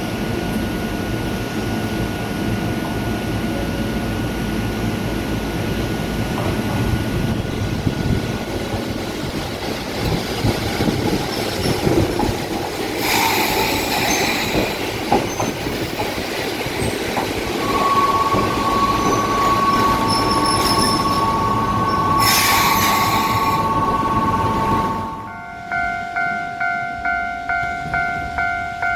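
Omi Railway 800/820-series electric train running past, its wheels rumbling on the rails with brief high-pitched squeals. A little before the end the rumble stops abruptly and a level-crossing bell rings, a two-tone ding repeating about two to three times a second.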